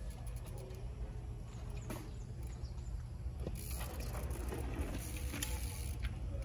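Mountain bike rolling over rough ground: a steady low rumble with scattered clicks and rattles.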